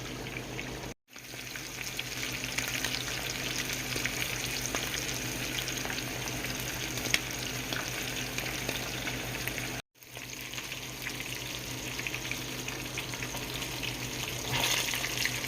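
Breaded catfish pieces deep-frying in hot oil: a steady sizzle with crackling pops. The sound cuts out briefly twice, about a second in and again near ten seconds.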